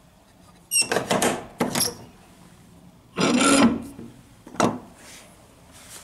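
Iron ring handle on an old carved wooden door being handled, the metal rattling and knocking against the wood in three short bouts: a clatter about a second in, a scraping rattle around three seconds, and a single sharp knock near five seconds.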